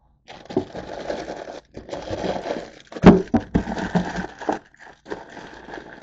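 Plastic food wrappers crinkling and rustling as packets are rummaged through and pulled out of a plastic bin, with a sharp knock against the bin about three seconds in.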